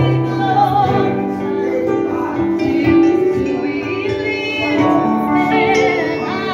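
Live worship music: keyboards and bass guitar playing under voices singing, with held notes and wavering sung lines.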